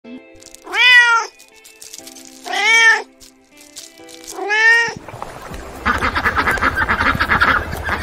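A tabby kitten meowing three times, about two seconds apart, each meow rising and then falling in pitch. From about halfway through, a dense, rapid pulsing animal chatter takes over.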